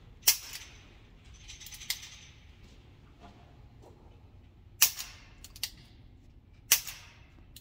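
Handgun shots at a range: three loud shots with a short echo, just after the start, about five seconds in and near seven seconds, with fainter cracks between them.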